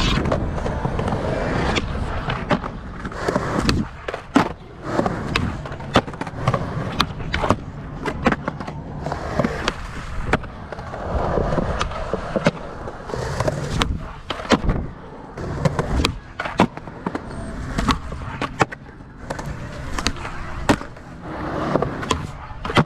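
Skateboards rolling on concrete, a steady rumble of the wheels broken again and again by sharp clacks and smacks as boards are popped, land and hit obstacles.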